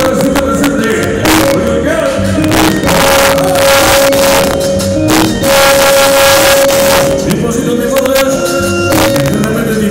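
Loud dance music with singing, played over a sonidero sound system, with a long high note held again and again over steady percussion.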